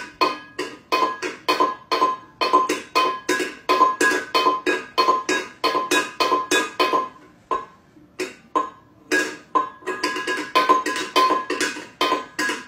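Background music of quick plucked, ringing notes repeating about three times a second, with a brief thinning about two-thirds of the way through.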